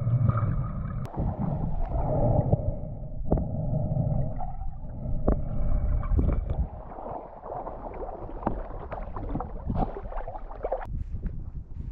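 Water gurgling and sloshing with scattered sharp clicks, louder for the first six seconds or so, then dropping away.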